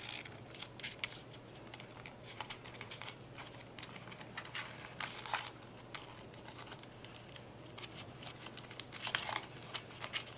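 Fingers working a wire into the plastic receiver box and chassis tub of a Traxxas Slash R/C truck: irregular small clicks, taps and rustles, busier about halfway through and again near the end.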